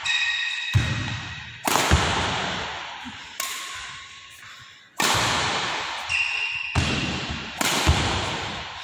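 Badminton racket strings cracking against shuttlecocks in a smash drill, a sharp hit every second or two, each echoing in a metal-walled hall. Sneaker squeaks on the court floor come in between.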